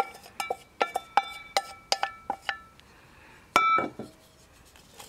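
Stainless steel bowl knocked again and again against a cast-iron Dutch oven to shake out sliced onions, each knock ringing metallically, about ten quick knocks in two and a half seconds. Then one louder clank about three and a half seconds in.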